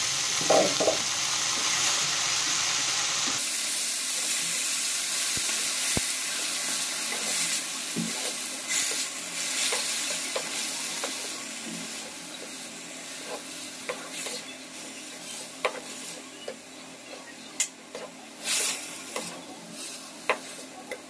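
Chopped fenugreek leaves sizzling in hot oil in a kadhai while a spatula stirs them, with scattered short clicks and scrapes of the spatula against the pan. The leaves are being dry-roasted so that their water cooks off. The sizzle grows steadily fainter through the second half.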